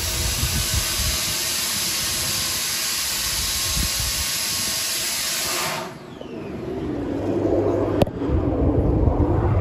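Waterproof DYK 13 mm 880 W electric drill running fully submerged in a tank of water: a steady, loud whirring hiss with the water churning, which cuts off suddenly about six seconds in. After that a lower churning and bubbling of water builds up, with one sharp click about two seconds later.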